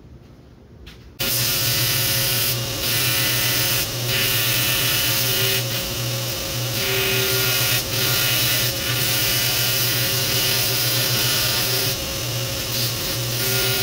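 Power grinder grinding 1084 carbon-steel knife blanks: a loud, steady machine whir and hiss of abrasive on steel. It cuts in abruptly about a second in, with small dips in level along the way.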